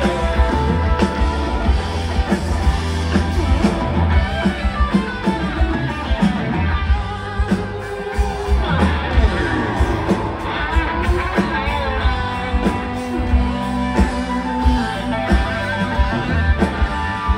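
Live rock band music with guitar to the fore over bass and a steady drum beat, with some singing and sliding guitar notes partway through.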